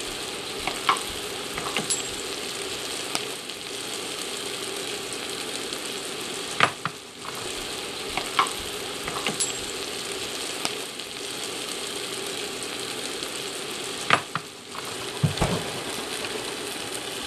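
Cauliflower florets and sweet potato sizzling in hot olive oil in an enamelled pot, with a few sharp knocks as they are stirred with a wooden spoon, the loudest about a third and three quarters of the way through.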